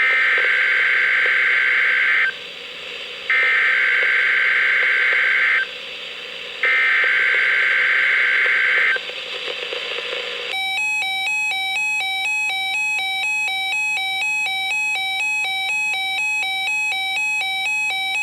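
Weather radio alert signal: three bursts of warbling digital SAME header tones, each about two seconds long with a one-second gap, the coded header that opens an Emergency Alert System message. About ten seconds in, a weather alert receiver's alarm sets off, an electronic beep that pulses about twice a second.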